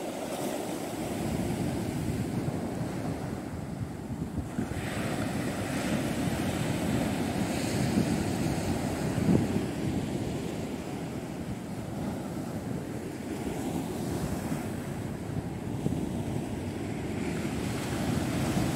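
Sea waves breaking and washing up on a beach, the surf swelling to its loudest about nine seconds in, with wind rumbling on the microphone.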